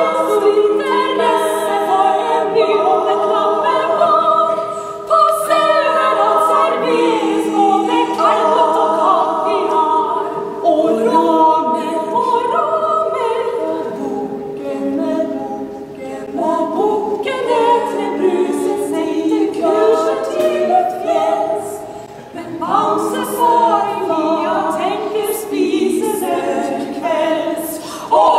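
Female vocal quartet singing unaccompanied in close four-part harmony, in phrases broken by a couple of short pauses.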